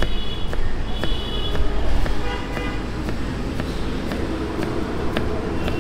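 Road traffic with car horns tooting briefly, under a knife tapping on a cutting board about twice a second as onions are sliced thin.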